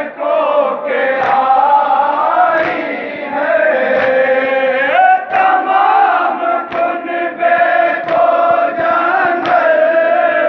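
A group of men chanting a nauha, a Shia lament, in unison, with sharp hand slaps of chest-beating (matam) coming roughly once a second.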